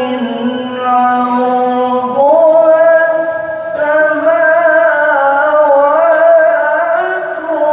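Male Qur'an reciter (qari) holding a long, ornamented melodic note in tilawah style. The pitch steps up about two seconds in and keeps wavering through the held tone.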